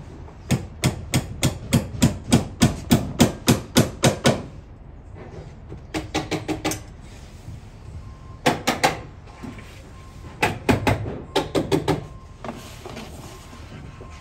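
Hammer driving fasteners into a wall: a fast, even run of about a dozen sharp strikes, roughly three or four a second, then short bursts of four or five quick strikes with pauses between them.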